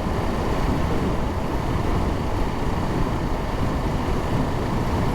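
Steady wind rush and motorcycle engine and road noise while riding, heard through an in-helmet microphone.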